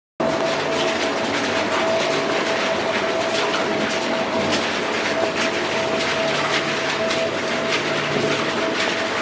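Steady mechanical din inside an underground emerald mine tunnel, with a constant whine over a low hum and scattered ticks and knocks; it starts abruptly just after the start.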